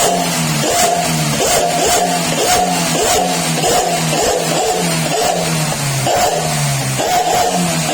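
Suzuki New Carry's engine running through a single-baffle stainless-steel 'suos ngorok' aftermarket muffler. The throttle is blipped over and over, about three revs every two seconds, and each rev falls back in pitch with the muffler's snoring exhaust note.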